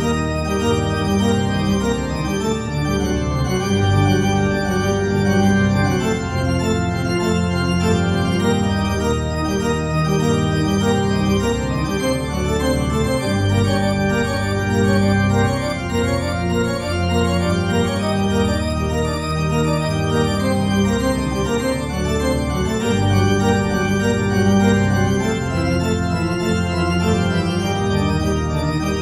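Organ music playing slow, held chords over a low bass line, as a soundtrack for a silent film.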